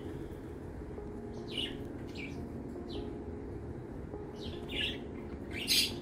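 Budgerigars chirping: a handful of short, high chirps scattered through, over a faint steady low hum.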